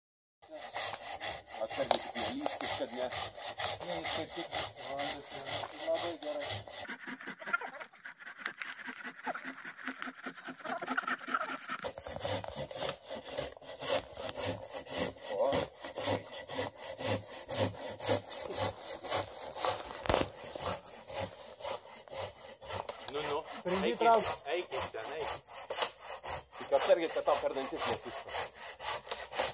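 A hand saw cutting through a fallen tree trunk, with steady back-and-forth strokes of the blade rasping in the wood.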